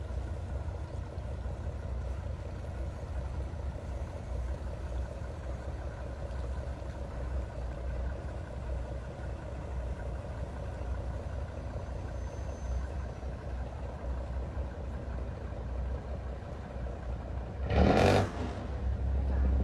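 Nissan V10 diesel of a wooden fishing boat running steadily, a deep even rumble. A short, loud rush of noise cuts in briefly near the end.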